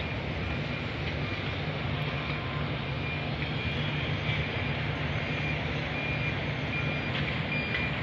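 Steady low rumble of distant traffic and site machinery, with a construction vehicle's reversing alarm beeping at a high pitch about once a second.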